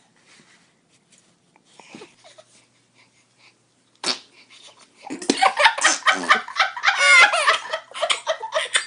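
A short sharp noise about four seconds in, then about a second later loud, rapid bursts of laughter running to the end.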